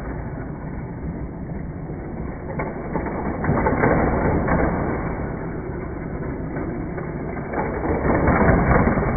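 Hot Wheels die-cast toy cars running around plastic track loops and through the central hub, a continuous rattling rumble that swells a few times.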